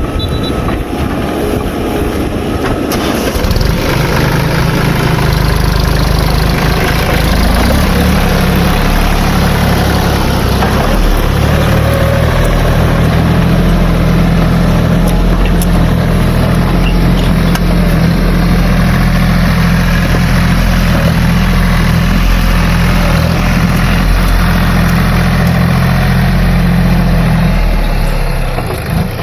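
Heavy diesel engine running steadily under load, louder from about three seconds in and dropping away near the end.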